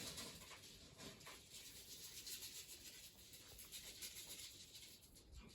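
A hand stroking a cat's fur, a soft uneven rustling and rubbing.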